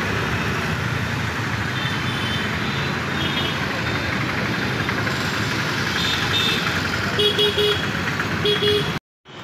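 Steady traffic and engine noise while moving along a busy city street, with a vehicle horn tooting in quick short beeps, three then two, near the end. The sound cuts off suddenly just before the end.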